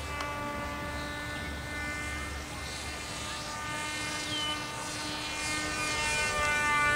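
Radio-controlled model plane's motor and propeller whining steadily overhead, the pitch sliding up and down as it flies past, louder near the end. Wind rumbles on the microphone.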